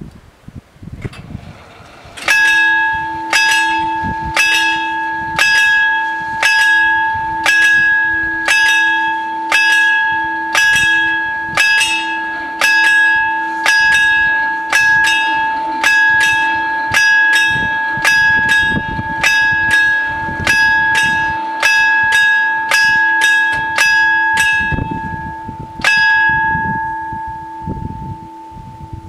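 The two warning bells of an Italian FS 88 level crossing ringing, struck over and over in a fast repeating pattern from about two seconds in, while the barriers come down. The striking stops a few seconds before the end and the last ring fades away.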